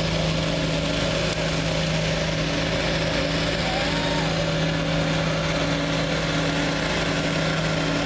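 Turbocharged International Harvester Farmall diesel tractor engine under full load pulling a weight-transfer sled, a loud steady drone that holds one pitch throughout.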